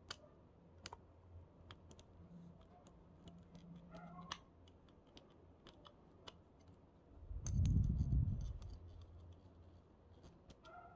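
Light, scattered clicks and taps of small metal reel parts and a screwdriver being handled during disassembly of a spinning reel. About seven and a half seconds in, a low rumble lasting about a second is the loudest sound.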